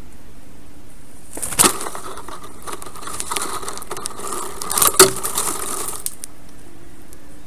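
A black stork landing on its stick nest and moving about on it: a stretch of rustling with sharp cracks and knocks of twigs, the loudest about a second and a half in and again about five seconds in.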